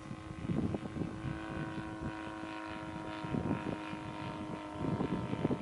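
Saito FG 57 four-stroke petrol engine of a large radio-controlled model motor glider running at a steady drone, with wind on the microphone.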